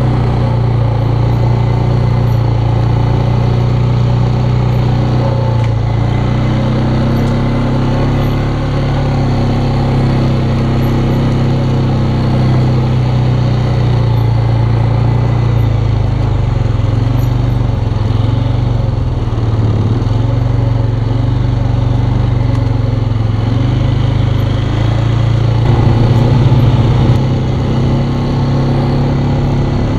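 Polaris Sportsman ATV engine running as the quad is ridden, its pitch wavering a little with the throttle, and briefly louder near the end.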